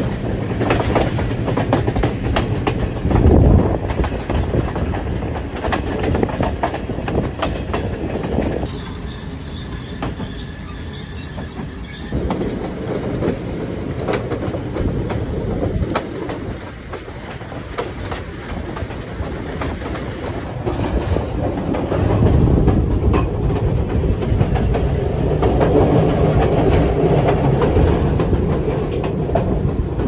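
Passenger train under way, its carriage wheels running and clattering over the rails, heard from an open window of a moving carriage. The running gets louder and heavier in the last third.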